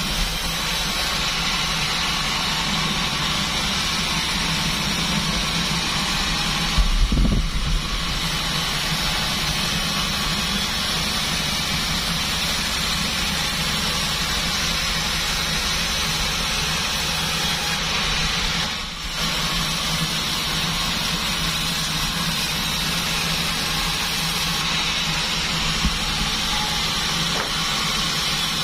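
Bandsaw sawmill machine running steadily, with a brief knock about seven seconds in and a short dip in the noise near nineteen seconds.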